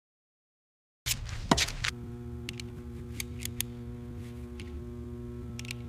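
Silent for about a second, then sharp clicks followed by a steady low hum with scattered metallic clicks and ticks over it.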